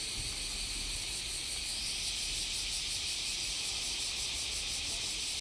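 Cicadas buzzing in a steady, high chorus, swelling a little about two seconds in.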